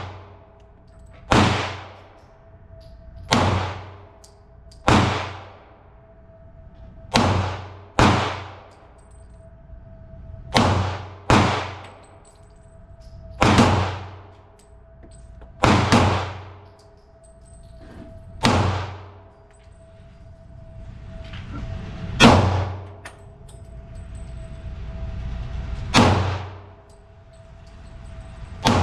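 Glock pistol firing slow, single aimed shots, about thirteen of them at uneven gaps of one to four seconds. Each shot has a sharp crack and a ringing, echoing tail, with a faint steady hum between shots.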